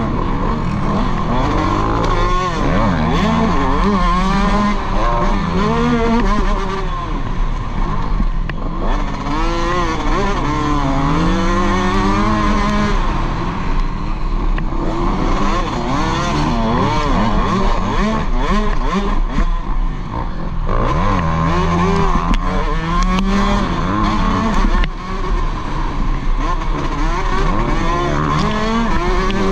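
Motocross dirt bike engine revving hard and easing off again and again, its pitch climbing and dropping as the rider works the throttle and gears around the track, with wind rush on a helmet-mounted microphone.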